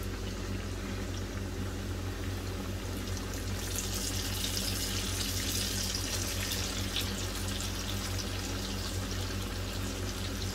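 Hot oil sizzling and bubbling around breaded chicken fillets being deep-fried. The sizzle grows louder and brighter about four seconds in, as another coated fillet is lowered into the oil.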